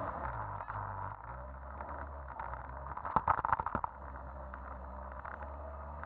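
Jet ski engine running at a steady speed, with a quick cluster of sharp knocks about three seconds in.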